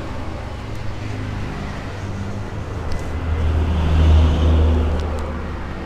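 A motor vehicle engine running nearby with a low hum, swelling louder about four seconds in and then fading as it passes, with a couple of faint clicks.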